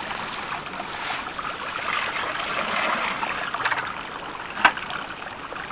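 Water poured from a plastic bucket rushing down a small sluice box into the bucket beneath it, rinsing the material out of the top of the sluice during cleanup. The pour tapers off after about three and a half seconds, and a single sharp knock comes near the end.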